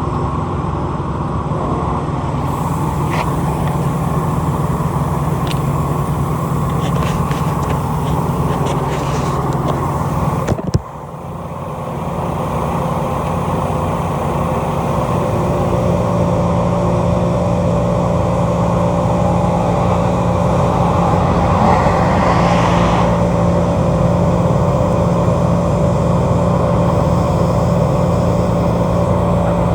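Pickup truck running, a steady low hum with no speech over it. The sound dips suddenly about eleven seconds in, then builds back up over the next few seconds.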